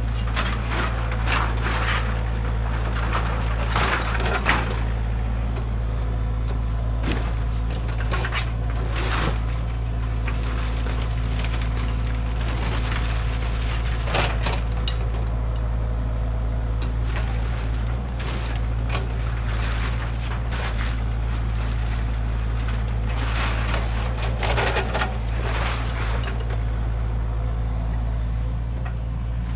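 Wood and brush cracking and splintering in irregular bursts over a steady low rumble.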